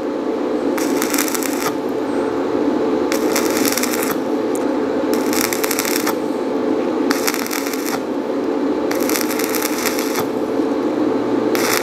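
Manual stick-welding arc from a rutile electrode at about 80 amps, struck and broken off again and again in break-arc welding. Crackling bursts about a second long come roughly every two seconds, each cut off abruptly as the electrode is snapped away and the arc goes out, over a steady low hum.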